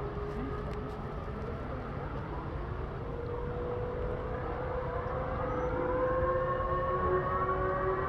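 Air-raid warning sirens sounding, several overlapping tones slowly rising in pitch and growing louder, over a steady low rumble.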